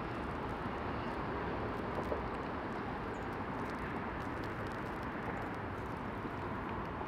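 Steady outdoor background noise of distant street traffic, with no distinct events apart from a faint tick about two seconds in.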